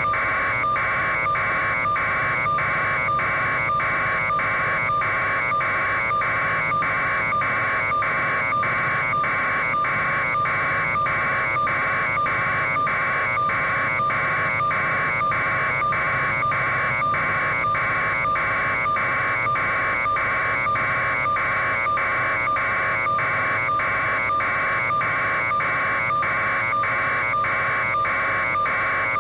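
A steady, loud buzz pulsing evenly about one and a half times a second over a low hum, carried on the news helicopter's raw audio feed.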